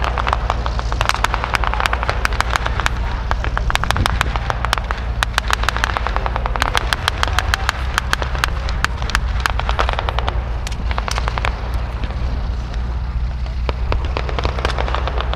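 Rapid, irregular shots of blank gunfire from a staged battle, in places coming close together like bursts, over the steady low hum of a running vehicle engine.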